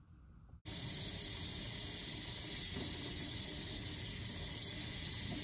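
Faint room tone, then, about half a second in, a kitchen faucet cuts in running into the sink: a steady hiss of water.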